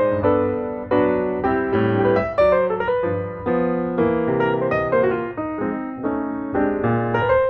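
Background piano music: chords and a melody played at a steady, moderate pace.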